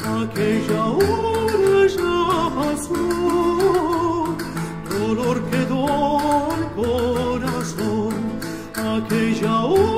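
A countertenor sings a Sephardic romance in a high voice with vibrato, over plucked guitar, held low bass notes and light percussion ticks.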